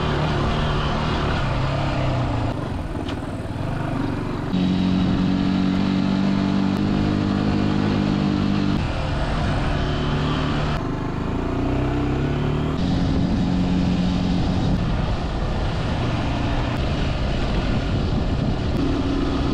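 Zontes G1 125's single-cylinder engine running as the motorcycle is ridden at steady engine speeds, its pitch stepping up or down abruptly every few seconds.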